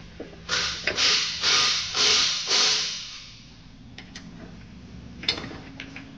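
Hand tool working metal on the underside of a zero-turn mower deck: about five loud rasping strokes in quick succession, then a single sharp click a couple of seconds later.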